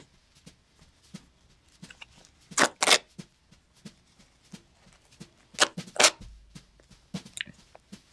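Glued leather and cotton layers of a wallet being torn apart by hand: two pairs of short tearing sounds, about three seconds in and again about six seconds in, with small rustles and clicks between.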